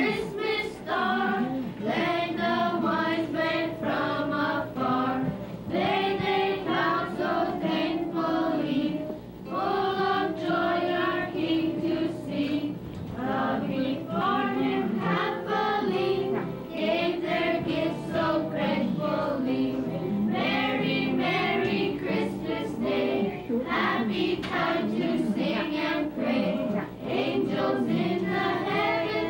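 A group of children and women singing a Christmas carol together, phrase after phrase with short breaths between.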